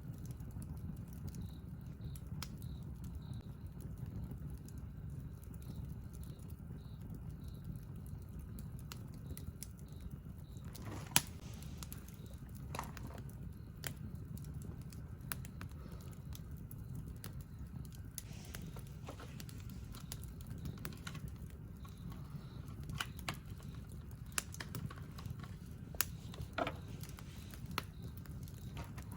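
Wood campfire burning: a low steady rumble with irregular crackles and pops, the sharpest about eleven seconds in.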